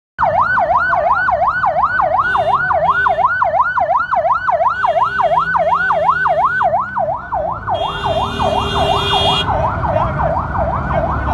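Ambulance siren on a fast yelp, the pitch rising and falling about three to four times a second. A steadier, horn-like tone sounds over it three times, a couple of seconds in, around five seconds and around eight seconds.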